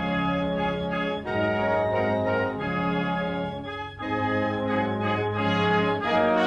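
Brass band music playing slow, held chords, with short breaks between phrases.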